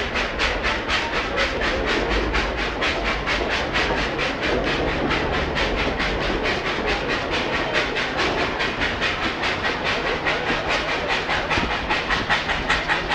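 Steam locomotive working its train up a 3% grade, exhaust chuffing in a steady rhythm of about four to five beats a second over the rumble of the coaches on the rails, heard from an open coach window.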